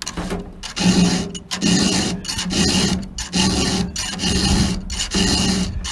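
Round file rasping through the cutter teeth of a McCulloch chainsaw chain, pushed in even strokes about every three-quarters of a second to sharpen a dull chain.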